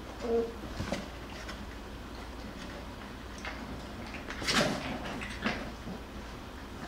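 Jackabee puppies scuffling and scrabbling against the sides and floor of a cardboard box as they wrestle: irregular scratches, bumps and rustles, loudest about four and a half seconds in, with one brief squeak near the start.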